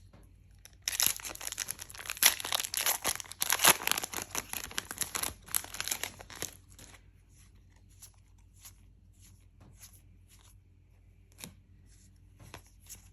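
A Lorcana booster pack's foil wrapper being torn open, a dense crinkling and ripping that lasts about five seconds. After that come only faint scattered ticks from handling the cards.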